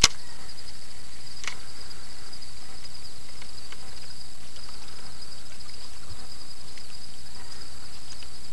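Steady high-pitched insect chorus, a constant shrill chirring. A sharp click comes right at the start and a fainter one about a second and a half in.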